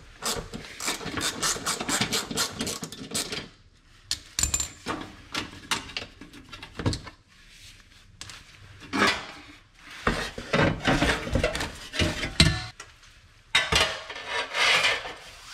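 Hand tools working on bolts under a car: a ratchet clicking in quick runs, then scattered metal clicks and clinks. Near the end comes a longer stretch of metal clattering and scraping as the exhaust heat shield is worked loose.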